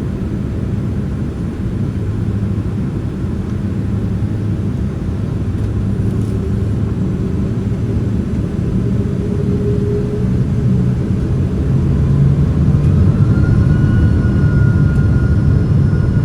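Boeing 767-300ER's General Electric CF6 jet engines heard from inside the cabin, a deep rumble that grows steadily louder. From about three-quarters of the way in, a rising whine joins it: the engines spooling up to takeoff thrust.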